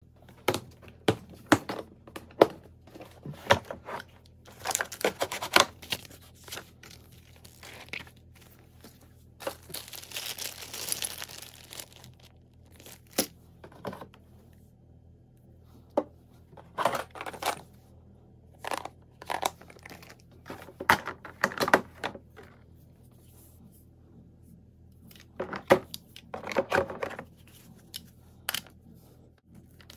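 Hard plastic gun case being opened and a shotgun handled in it: a series of sharp plastic clicks and knocks as the latches are snapped open and the lid and parts are moved, with stretches of rustling and crinkling.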